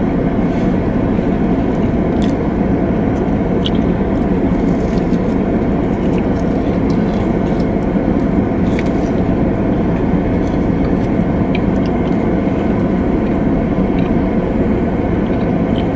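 Steady noise of a car running, heard inside the cabin, with faint clicks of people chewing a sticky, chewy rice-cake treat over it.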